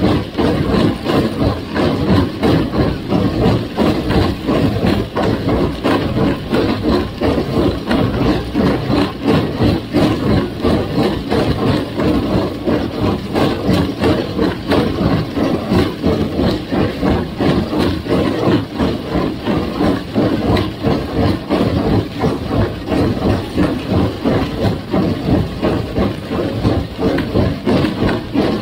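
Farmall 350 gas tractor engine running under way with a John Deere 348 square baler, with a steady, fast rhythmic pulsing.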